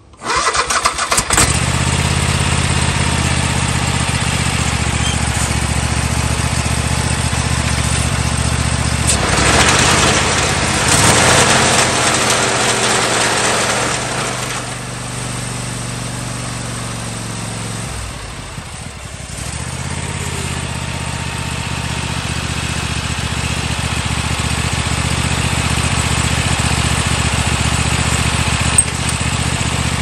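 Toro TimeCutter zero-turn mower's engine cranks and catches right at the start, then runs steadily. It grows louder for several seconds in the middle, dips briefly, and settles back without cutting out: the shut-off fault is cured by cleaning the corroded safety switches.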